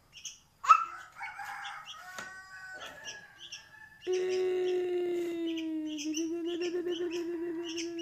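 A month-old sooty-headed bulbul chick giving short high chirps, two or three a second. There is a sharp tap a little under a second in, and from about halfway a long, low, steady hum that wavers toward the end is the loudest sound.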